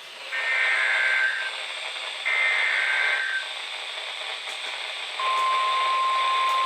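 NOAA Weather Radio alert over a hissing radio receiver: two buzzy, roughly one-second bursts of SAME digital header data about a second apart, then, about five seconds in, the steady 1050 Hz warning alarm tone comes on and holds.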